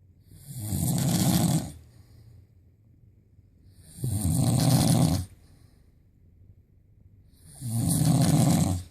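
A person snoring loudly, three long, rasping snores about three and a half seconds apart.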